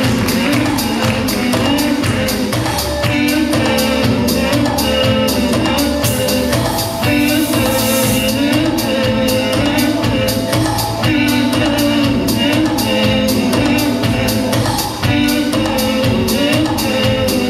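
Dance music with singing over a steady beat.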